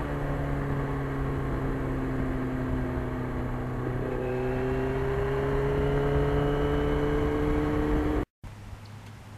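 1991 Yamaha FZR1000's inline-four engine running under way, its note easing slightly and then climbing steadily through the second half as the bike pulls. About eight seconds in it cuts off abruptly to a much quieter background.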